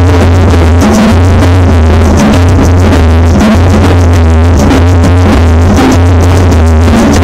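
Loud synthesizer-driven electronic dance music with a drum machine and a heavy bass held in long notes, played over a sonido sound system.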